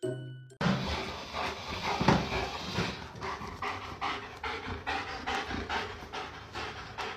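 German Shepherd panting fast and hard, about three breaths a second.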